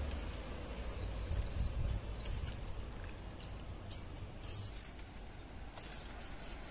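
Faint garden ambience: a steady low rumble with small birds chirping in short bursts now and then.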